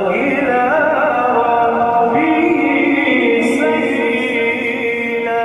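A male reciter's melodic Quran recitation in the maqam style: a long held, ornamented vowel that wavers near the start and moves to a new pitch about two seconds in.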